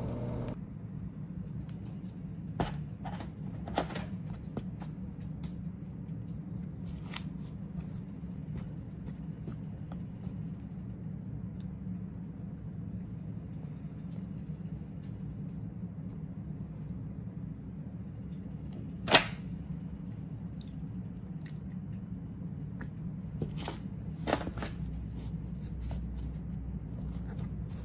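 Hands tossing pieces of beef liver in a foil pan of flour and cornstarch: soft rustling with scattered light taps and crinkles of the aluminium pan, and one sharper click about two-thirds of the way through. A steady low hum lies under it all.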